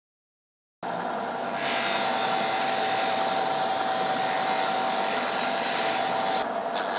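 Scheppach BD9000 belt and disc sander grinding a metal tab held in locking pliers against its sanding disc: a steady grinding hiss over the motor's constant whine, starting suddenly about a second in, with a brief dip near the end.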